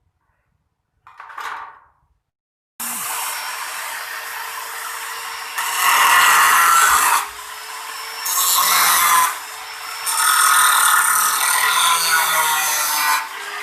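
A small electric power tool starts up and runs with a steady motor hum, louder in three spells as it works into the material. A short sound comes just before it starts.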